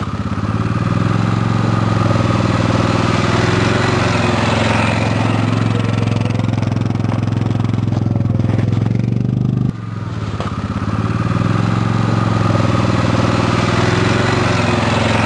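Vehicle engine running steadily at an even speed, with an abrupt break about ten seconds in before it carries on.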